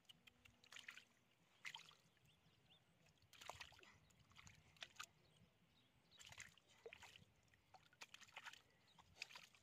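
Hands groping through mud and shallow muddy water, making faint, irregular sloshes and squelches about once a second.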